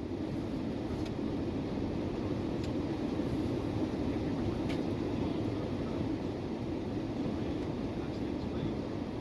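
Steady road and engine noise of a car being driven, an even rumble with a few faint ticks.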